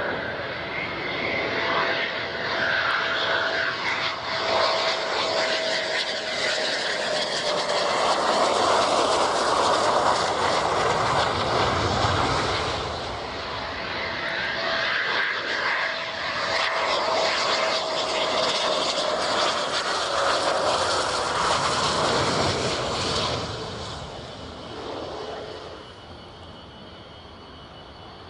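Eurofighter Typhoon's twin EJ200 jet engines on landing approach and touchdown: a loud roar with a high whine that slowly falls in pitch, heard twice. The roar dies away to a distant rumble about three quarters of the way through.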